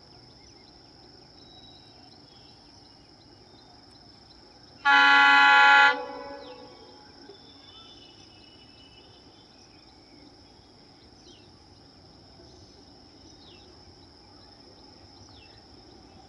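WDG-4D diesel-electric locomotive's horn sounding one blast of about a second, about five seconds in, trailing off over the next second. Between blasts only a faint background is heard, with a steady high-pitched tone.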